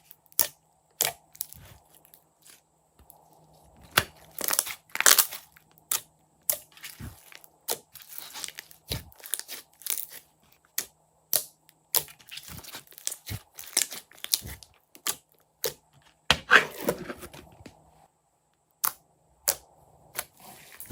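Slime being squished and poked by hand: an irregular run of sharp sticky clicks and crackling pops, with a few louder squelching bursts.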